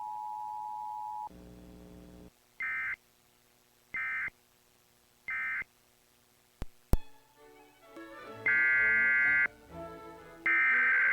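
Emergency Alert System tones. A steady two-note attention tone stops about a second in. Three short digital data bursts of the end-of-message code follow, about a second apart. After a click, two longer and louder data-burst headers begin the next alert.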